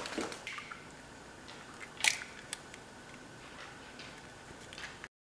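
Raw eggs being cracked into a ceramic mixing bowl: a sharp crack at the start and another about two seconds in, with lighter taps and clicks between.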